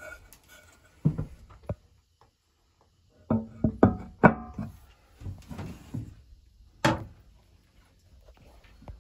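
Handling of a porcelain toilet and its seat and lid: hollow knocks and clunks, some with a short ringing tone, loudest in a quick cluster about three to four seconds in, then a sharp click near seven seconds.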